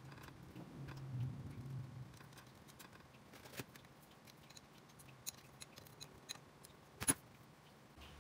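Small metal clicks and taps as a motorcycle carburetor and its fittings are handled and a small spanner is put to it. The two sharpest clicks come about three and a half and seven seconds in.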